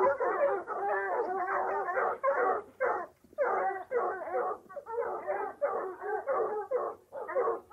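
Dogs giving voice on a hunt or chase: rapid, overlapping high yelps and bays in quick runs, with short breaks about three seconds in and near the end.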